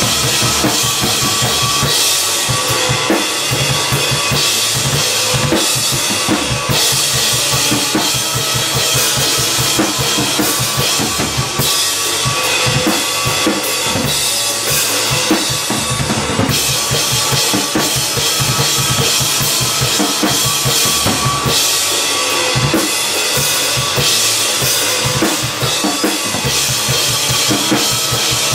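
Acoustic drum kit played in a steady groove, kick drum and snare hits under long stretches of crashing cymbals, over a looped electric guitar track.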